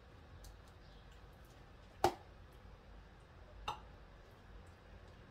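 Spoon knocking against a container while tomato sauce is spooned out: one sharp click about two seconds in and a softer one a second and a half later, with a few faint ticks between.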